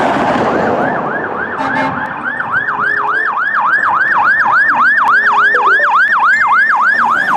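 Electronic siren in a fast yelp, its pitch sweeping up and down about four times a second. It follows a rushing noise in the first two seconds.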